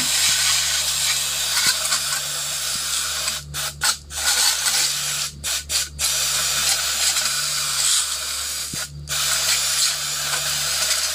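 WD-40 aerosol can spraying onto a rusty bicycle chain in a foil tray. The spray hisses steadily in long bursts, with a few brief breaks where the nozzle is let go.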